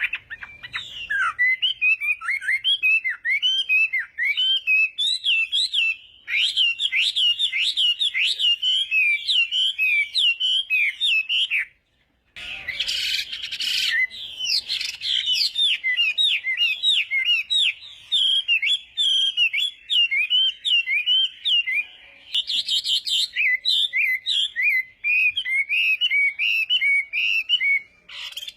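Chinese hwamei singing a long, fast run of varied whistled notes that sweep up and down, broken by a short pause about twelve seconds in.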